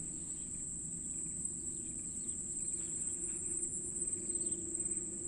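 Steady high-pitched insect drone from the swampy grass, with a few faint chirps in the middle.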